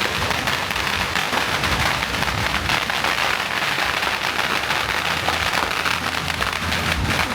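A long string of firecrackers going off, a dense, continuous crackle of small pops.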